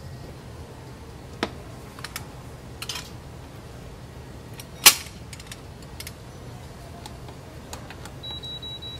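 Metal clicks and clanks as a stainless-steel pot with a red pressure lid is handled and set on an induction cooker, the loudest clank about five seconds in. Near the end the cooker's control panel beeps several times as its buttons are pressed.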